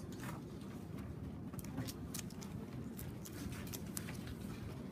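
Faint, scattered crackles and ticks of crumpled newspaper and masking tape being handled, over a low room hum.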